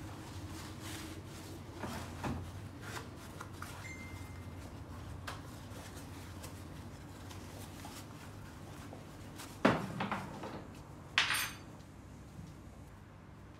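Soft rustling and handling noises of a dry suit being folded and laid flat on a table, with a sharp knock about ten seconds in and a brief swish a second or so later. A low steady hum sits underneath.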